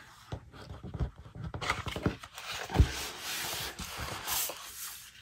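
Sheets of scrapbook paper rustling and sliding as a stack is handled and leafed through, with a few soft knocks, the loudest a dull thump a little past halfway.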